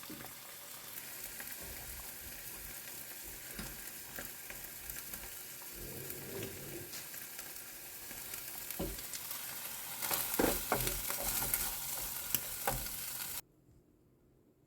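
Food sizzling as it fries in a pan, with a few scattered clicks. The sizzle grows louder about ten seconds in, then cuts off abruptly near the end.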